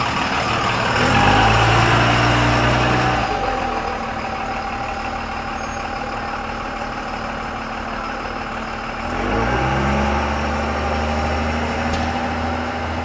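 A vehicle's engine running, rising in pitch about a second in and again near nine seconds and holding each time, as when a vehicle pulls away or speeds up.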